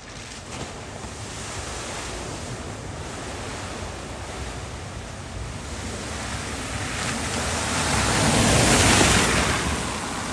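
A Mercedes car driving through a flooded ford, its tyres pushing and splashing through the water with a steady rushing wash. The wash grows louder as the car comes closer, peaks as it passes close about nine seconds in, then eases.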